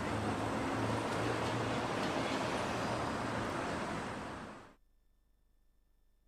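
A steady rushing noise with a low rumble, cutting off abruptly a little over four and a half seconds in.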